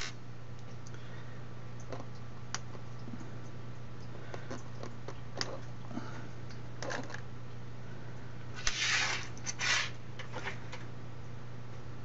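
Light clicks and rustles of hands handling RC car ESC wires and metal bullet connectors, with a louder scratchy rustle about nine seconds in, over a steady low hum.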